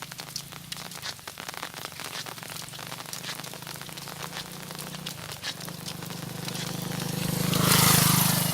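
Rain pattering in dense, irregular ticks over a steady low engine hum. Near the end the hum and a wet hiss swell to a peak and begin to fade, as a vehicle passes.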